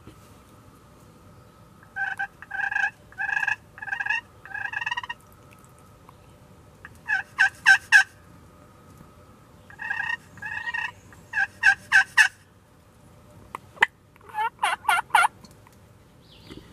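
A turkey call worked close by, sounding runs of hen yelps: loud groups of four or five short notes with pauses between. The runs near the middle and end are quicker. Two sharp clicks come just before the last run.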